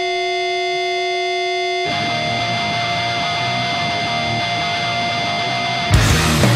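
A steady ringing electric-guitar drone of several held tones gives way about two seconds in to a dense wash of distorted guitar noise. Near the end a loud punk band with pounding drums crashes in.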